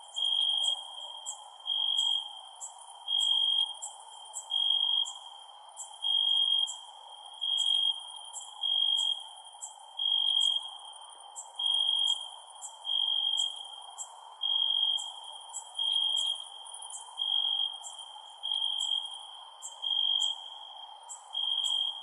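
Crickets chirping: one clear-pitched trill of about half a second repeats roughly every 1.4 seconds, over faster, higher-pitched chirps and a soft steady hiss.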